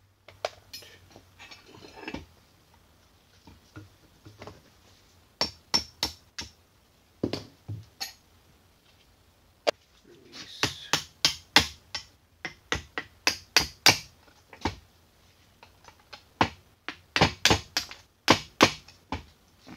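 Runs of sharp metal-on-metal taps, a few a second with short pauses between runs: hammer blows on the metal parts of a 1940s Sheldon lathe apron, knocking a stuck part loose.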